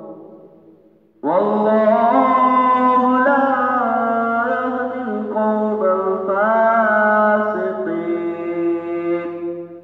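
Male qari reciting the Quran in melodic tilawat style. One long phrase begins about a second in, with held notes that glide and turn, and fades away near the end.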